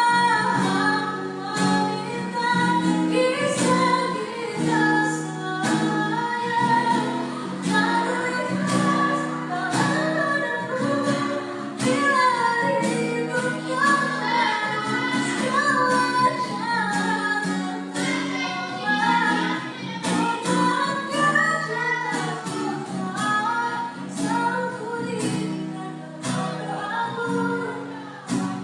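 A girl singing a slow pop ballad, the melody carried over a steady accompaniment of chords and regular light strikes.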